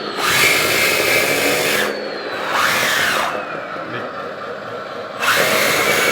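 Metal RC bulldozer's electric track drive motors and gearboxes whining as it is driven and turned to the right, in two loud spells with a quieter stretch between, where a thin whine falls in pitch.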